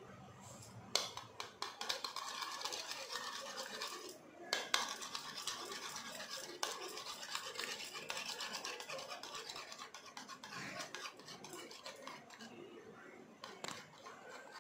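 Metal spoon beating eggs in a bowl: fast, steady clicking and scraping of the spoon against the bowl, starting about a second in, with a brief pause around four seconds.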